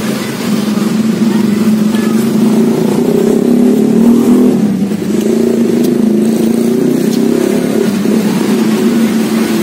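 An engine running close by, a steady low drone that swells about three seconds in and eases off again around five seconds.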